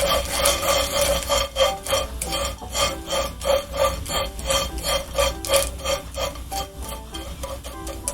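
Small dried anchovies being stirred and scraped around a frying pan with a spatula: rhythmic dry rasping strokes, about three a second, with soft background music underneath.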